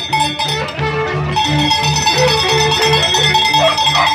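Andean Santiago festival music: a drum beating steadily about three times a second under a short melody. A long, held high note comes in about a second and a half in.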